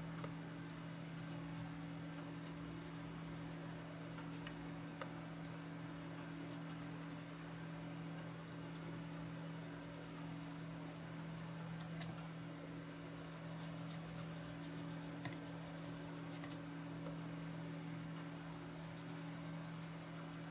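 Foam ink blending tool rubbed over a stencil on cardstock: a soft scratchy swishing that comes in several stretches, with a single light tick about halfway through. A steady low hum runs underneath.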